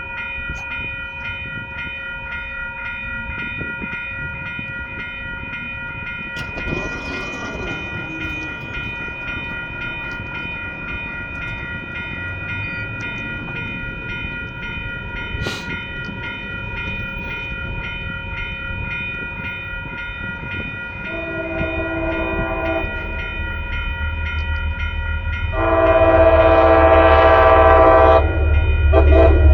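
Grade-crossing bell ringing steadily as a commuter rail train approaches. About 21 s in, the locomotive's horn sounds a short blast, then a longer, louder blast about 26 s in and more horn near the end, over a rumble that grows as the train nears the crossing.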